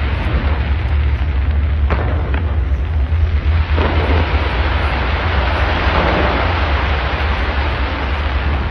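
Fireworks display going off continuously: a dense, rumbling crackle with a few sharper bangs about two and four seconds in.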